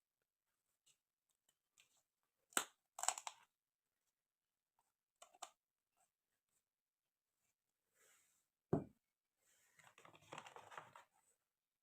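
Plastic toy kitchen pieces and packaging being handled: a few sharp clicks and knocks, then crinkling and rustling of packaging near the end.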